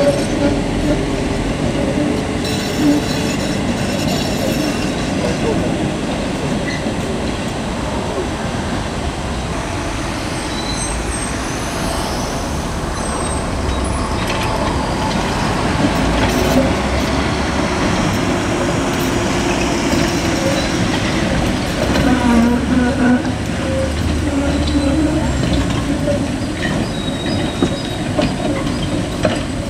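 Konstal 105N-family trams rolling through a curved junction, their wheels rumbling over the rails, with brief high wheel squeals now and then on the curve. Street traffic runs alongside.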